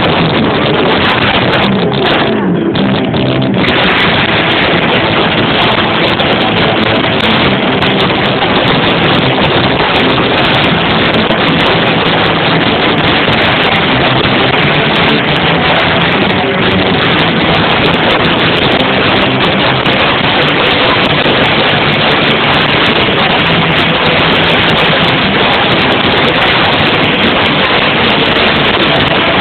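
Live rock band playing electric guitar and bass through amplifiers, recorded so close and loud that the sound is heavily distorted and clipped, turning into a dense, steady wash of noise.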